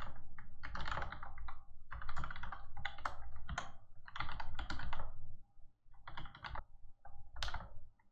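Typing on a computer keyboard: quick runs of keystrokes with short pauses between them, thinning out to a few single key presses in the last couple of seconds.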